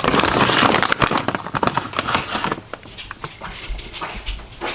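An excited dog making noises, loudest for the first two and a half seconds, then quieter with scattered clicks.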